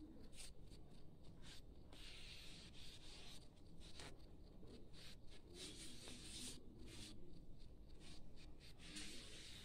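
Faint, irregular scratching of a glue bottle's nozzle dragged across card paper as a line of liquid glue is laid down, in short strokes that start and stop.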